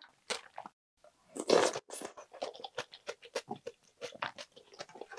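Close-miked eating sounds: a loud slurp of ramen noodles and broth from a spoonful of budae-jjigae about a second and a half in, then steady chewing with many short clicks.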